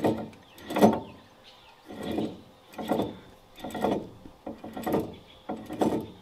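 New 4.88 ring and pinion gears in a GM 10-bolt rear differential, rolled back and forth by hand about once a second. The teeth mesh through yellow gear-marking paint to print a contact pattern, a check that shows the gears are not lined up and need shimming.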